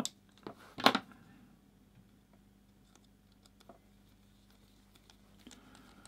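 Small clicks and taps of a screwdriver working a plastic inline mains connector: one sharp click about a second in, then faint scattered clicks as the flex-grip screw is turned in.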